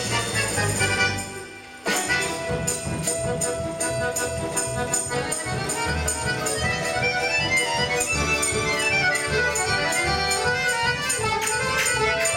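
Russian folk instrument ensemble playing: balalaikas, bayan and accordion over drums and tambourine-like percussion. The sound drops back briefly about a second in, then the full band comes in again with a steady, quick beat.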